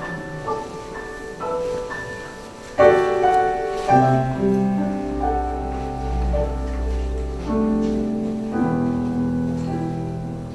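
Solo grand piano introduction: light single notes at first, then full, louder chords from about three seconds in, with deep bass notes held under them for a few seconds in the middle.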